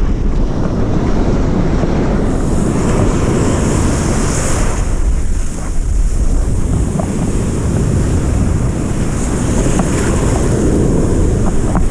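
Ocean surf washing and hissing as foam rushes close around the camera, under heavy wind buffeting on the microphone. The hiss of the breaking water swells twice, about two seconds in and again near ten seconds.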